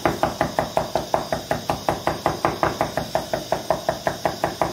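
Chef's knife rough-chopping garlic on a wooden cutting board: quick, even knocks of the blade on the wood, about six a second.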